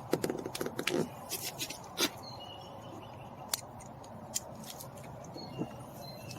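Small sharp clicks and taps of a screwdriver and screws against plastic door trim as the fasteners are started: a quick cluster in the first two seconds, then a few single clicks.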